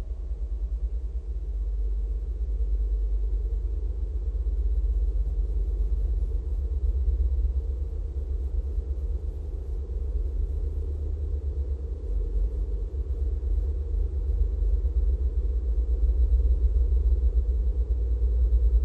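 Deep, steady rumbling drone of an ambient electronic soundtrack, slowly swelling louder toward the end.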